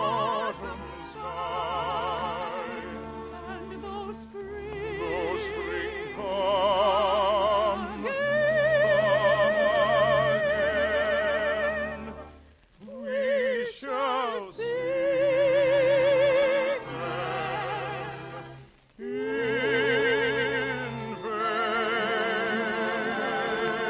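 Operetta singing with a wide, wavering vibrato over orchestral accompaniment, broken by two short pauses, one about halfway and one about three-quarters of the way through.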